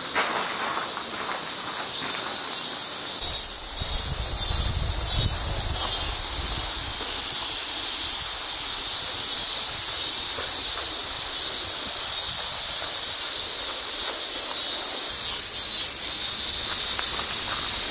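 Cicadas buzzing in a steady, high chorus from the summer forest, with a brief low rumble a few seconds in.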